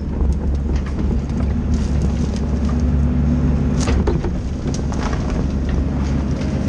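Diesel engine of a tracked timber harvester running steadily under hydraulic load, heard inside the cab. Scattered sharp knocks and cracks come as the harvester head works small spruce stems.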